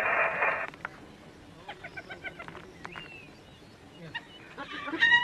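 Spotted hyenas calling while mobbing a lion at a kill. A harsh snarl comes at the start, then quick series of short, high, pitched calls about two seconds in and a louder series near the end.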